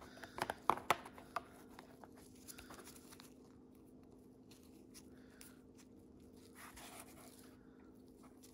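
Plastic gears being handled in nitrile-gloved hands: a few sharp clicks in the first second and a half as they are picked up and set down, then faint rubbing and handling noise over a low steady hum.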